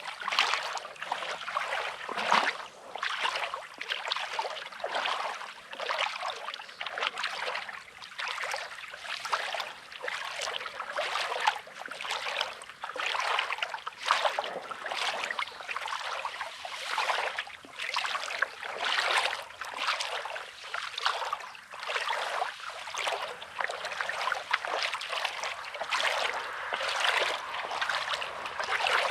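Small waves lapping and washing over a stony shore, with water trickling and gurgling among the stones in uneven surges about once a second.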